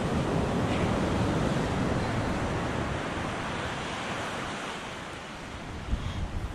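Ocean surf breaking and washing onto a sandy beach: a steady rush that eases a little toward the end, with wind buffeting the microphone near the end.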